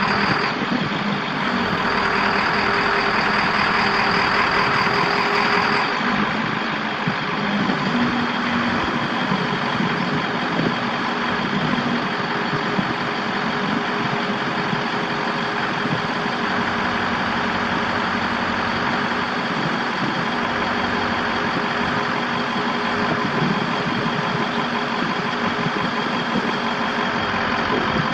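The 1995 International 4700's T444 7.3 L V8 turbo diesel running steadily. A higher whine rides over it for a few seconds near the start, then the engine sound carries on alone.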